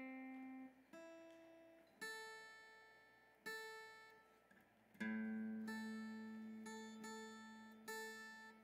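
Acoustic guitar being tuned after a capo is put on: single strings plucked one at a time, about one a second, each ringing out and fading, the loudest about five seconds in.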